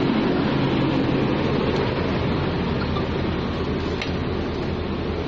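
Steady mechanical drone with a low hum underneath, from the motorhome's running machinery; it keeps on unchanged as the steps are climbed and the cabin is entered.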